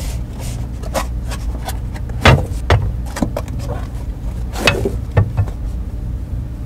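Cardboard product boxes being opened and cookware packaging handled by hand: rubbing, rustling and several knocks, the loudest about two seconds in and again past the middle, over a steady low hum.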